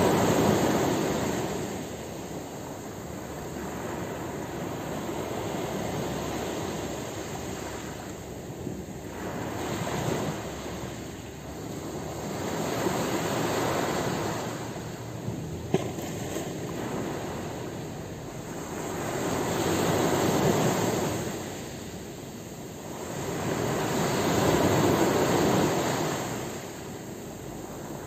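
Small waves breaking on a fine shingle beach and washing back, the surf swelling and fading several times, with one short sharp click just past halfway.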